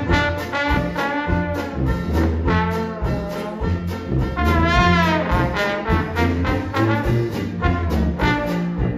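A traditional Dixieland jazz band plays an up-tempo tune, with the trombone out front over a tuba bass line and a steady banjo and drum beat. About halfway through a horn holds a note with a wide vibrato.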